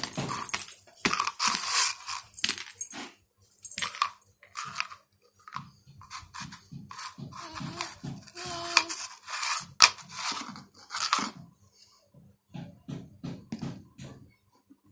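Red plastic potty lid scraped and knocked against a concrete floor, making a run of short irregular scrapes and clicks, with one sharp knock about ten seconds in.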